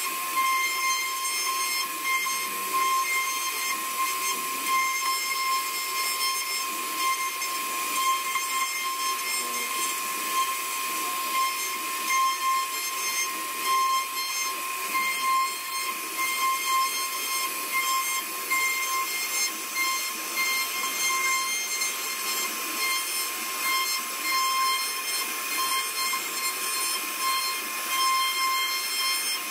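CNC router spindle running at speed, its bit cutting a relief pattern into a wooden board: a steady high-pitched whine over a continuous hiss of cutting.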